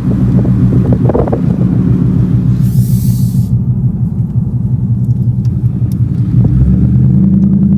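Ford Mustang GT's 5.0 L V8 running with a steady low rumble while driving, with a brief rush of hiss about three seconds in.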